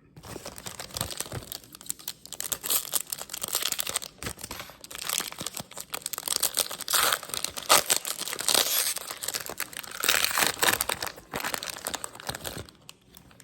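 Plastic wrapper of a 2022 Topps Update baseball card pack crinkling and tearing as it is ripped open and handled, in a rapid run of sharp crackles that dies away near the end.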